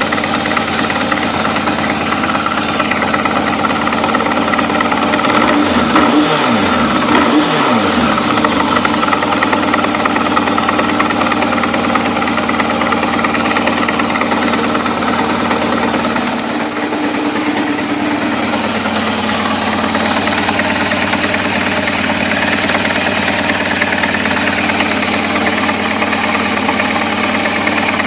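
Suzuki RF600 motorcycle's four-cylinder engine running steadily, with a strange noise in its running that the owner is trying to identify. Its pitch sweeps briefly about six to eight seconds in, and its sound changes slightly a little past halfway.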